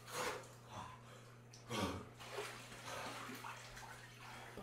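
Water sloshing and splashing in an inflatable pool as a person stands up and wades through it, in a few separate splashes, the loudest about two seconds in. A faint low hum runs underneath.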